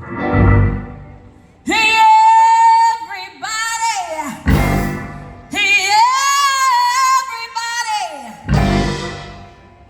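Female singer holding long notes that bend and waver, backed by a live band. The band lands a loud low hit about every four seconds, three times in all.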